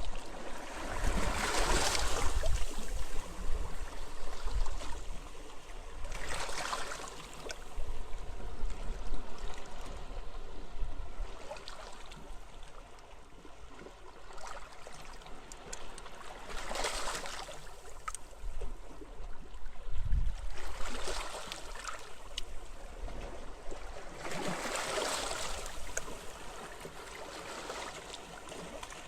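Sea waves breaking and washing up on a beach, a wash every few seconds with quieter stretches between, over a steady low rumble of wind.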